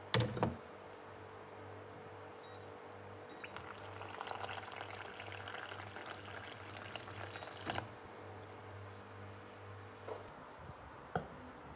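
A countertop water dispenser pours a stream of water into a ceramic cup for about four seconds, starting about three and a half seconds in. A knock opens it as the cup is set on the dispenser's drip tray, and a steady low hum runs underneath until about ten seconds in, followed by a couple of small clicks.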